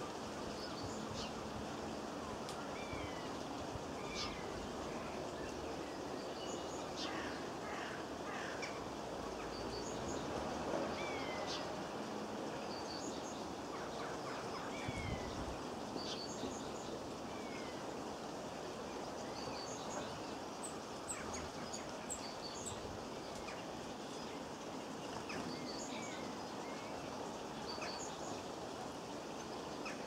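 Small garden birds calling: short descending whistled notes repeated every second or two, with scattered sharp high chirps, over a steady outdoor hiss.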